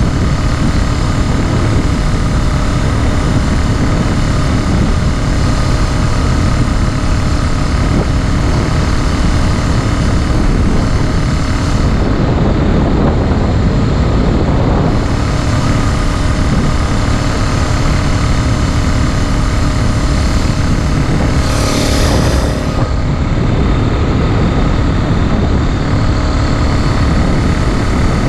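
Small 49cc four-stroke engine of a motorized bicycle running steadily under way, a new engine being broken in. A brief rush of hiss comes about three-quarters of the way through.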